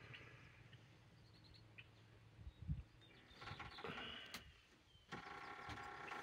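Very faint quiet ambience with distant bird calls, a soft low bump a little before the middle, and a steady hum coming in about five seconds in.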